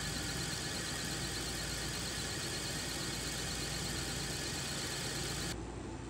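Wood lathe spinning a pool cue while wax is rubbed onto it with a cloth: a steady machine run that cuts off suddenly about five and a half seconds in.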